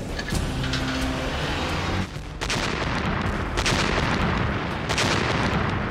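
A low steady hum, then from about two seconds in a run of heavy blasts roughly a second apart: artillery shells bursting.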